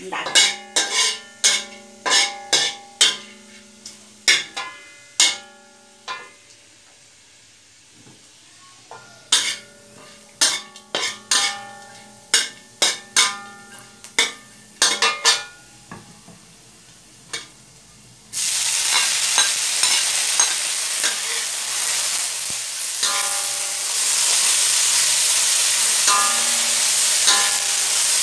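A metal spatula knocking and scraping against a steel wok, each strike ringing, in two spells of rapid clinks. About two-thirds of the way in a loud, steady sizzle starts as julienned ginger stir-fries in hot oil, with the spatula still clinking through it.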